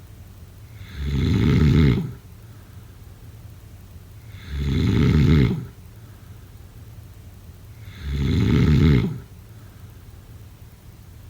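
A person snoring: three snores, each about a second long, coming about every three and a half seconds.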